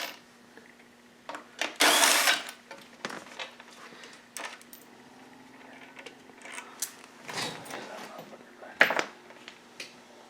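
A short, loud burst of a power driver about two seconds in, then scattered clicks and knocks of tools on the dirt bike's engine and radiator parts, over a faint steady hum.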